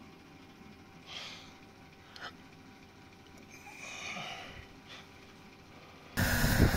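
Quiet room tone with a few faint rustles and a small click. About six seconds in, a sudden cut brings in loud wind buffeting the microphone.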